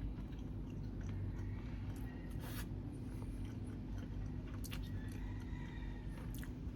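Close-up chewing and biting of food, with a few short sharp clicks over a steady low hum.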